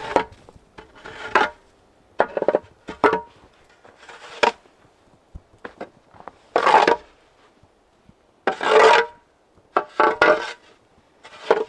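A shovel scraping and scooping through deep snow in about ten irregular strokes, two of them longer drawn-out scrapes near the middle, with a faint metallic ring on some strokes.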